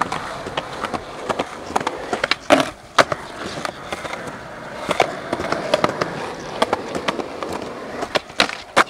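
Skateboard wheels rolling over rough concrete, a steady gritty rumble broken by frequent clacks and snaps of the board. The sharpest snaps come about two and a half and three seconds in, and twice more near the end.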